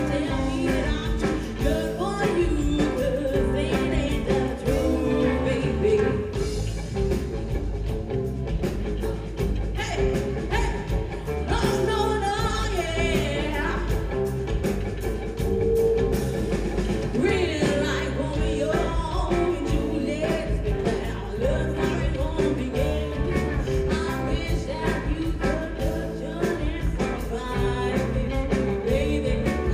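Live rock band playing a song: a woman singing lead over electric guitars, bass guitar and a steady drum beat.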